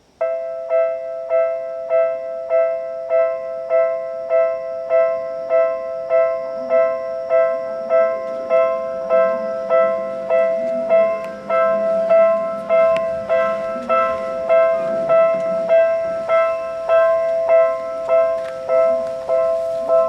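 Japanese railway level-crossing warning bell starting suddenly and ringing steadily at about one and a half strokes a second, two pitches sounding together on each stroke: the crossing is warning of an approaching train.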